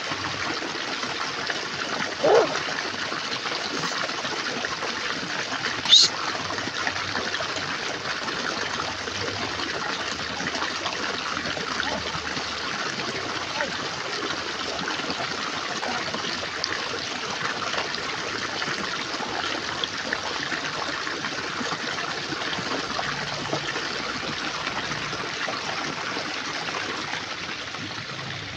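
Steady running, trickling water. Two short squeaks cut through it, a lower one about two seconds in and a higher, rising one about six seconds in.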